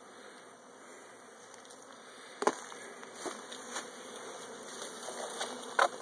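Honey bees from a newly hived swarm buzzing around a Warré hive. Two brief louder buzzes come about two and a half seconds in and near the end, as bees fly close past the microphone.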